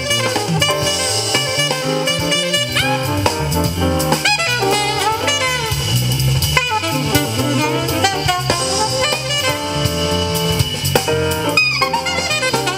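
Instrumental break of a Thai song, a gliding lead melody over a steady drum beat, played through a pair of LSM FR112M loudspeakers.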